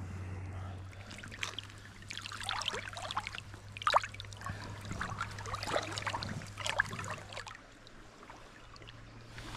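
Shallow river water splashing as a rainbow trout is held in the current by hand and released. The splashes are irregular, the sharpest about four seconds in, and they die away near the end.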